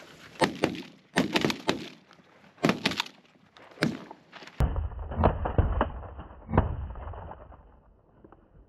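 A rapid volley of shotgun shots from several hunters firing together, many sharp reports in quick succession over the first four seconds or so, then a few more spaced out.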